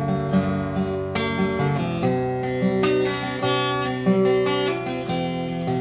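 Acoustic guitar played solo, chords picked and strummed with the notes ringing on, changing chord every second or so.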